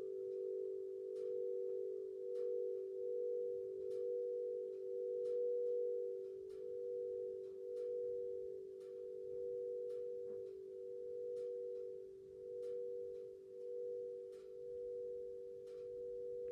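Gorin hensho bronze bells ringing on in a long sustained tone, two or three close pitches wavering against each other in a slow pulse and slowly fading. Sparse small crackles of a wood fire pop over it.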